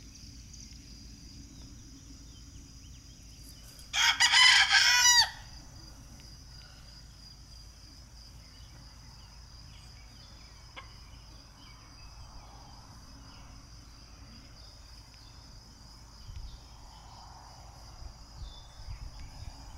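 A rooster crows once, about four seconds in, over a steady high-pitched insect drone.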